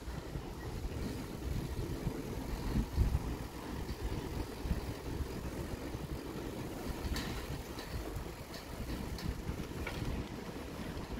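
Wind buffeting the microphone and tyre rumble from a city bicycle riding along a paved street, a steady low rumble with a few faint ticks in the second half.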